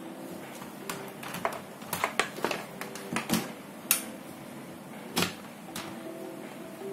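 Closed plastic laptop and its charger handled on a wooden desk: a run of irregular clicks and knocks as they are set down and slid, the loudest two about four and five seconds in.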